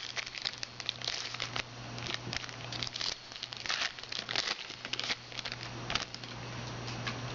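Crinkling and rustling of trading-card pack wrappers and cards being handled, in many short irregular crackles, over a steady low hum.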